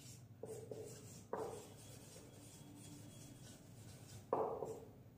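Marker pen writing on a whiteboard: a few faint strokes, with sharper ones about a second in and near the end.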